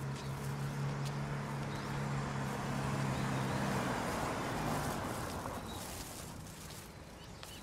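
Outdoor residential street ambience: a steady low hum that stops about four seconds in, a wash of noise that swells and fades, and faint bird chirps.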